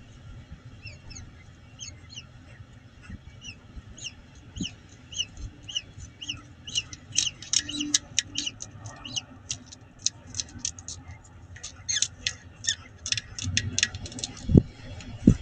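Newly hatched peregrine falcon chick peeping under the brooding adult: thin, high, slightly falling peeps about twice a second, coming quicker and louder from about six seconds in. Two dull thumps near the end.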